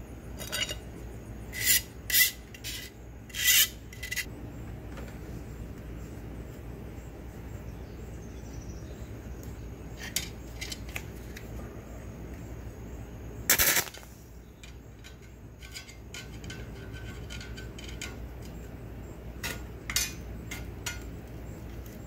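Short metallic clinks and scrapes of a welding rod being handled and pushed into the jaws of a stick-welding electrode holder, most of them in the first few seconds, the loudest a half-second scrape a little past the middle. A steady low hum runs underneath.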